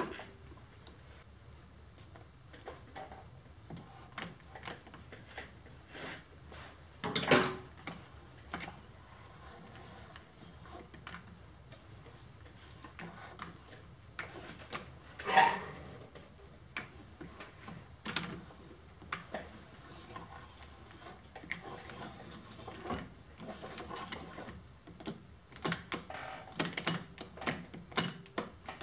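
Metal clicks and knocks from handles and a steel rod being worked into the quill feed hub of a milling machine: scattered light clicks, two louder knocks about 7 and 15 seconds in, and a quicker run of taps near the end.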